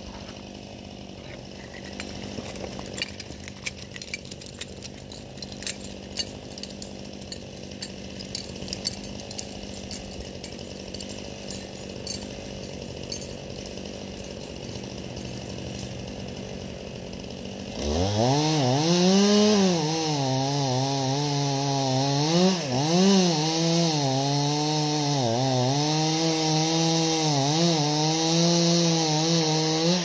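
A chainsaw idles faintly with scattered clicks, then about eighteen seconds in it is opened up to full throttle and runs loud, its pitch dipping and recovering as the chain loads in the wood. This is the back cut on a tree being felled behind a directional face cut.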